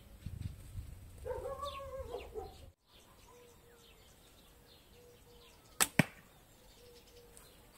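Comanche-style short recurve bow, made from a kid's bow, shot once: the loosed string gives a sharp snap, followed a fifth of a second later by a second sharp crack.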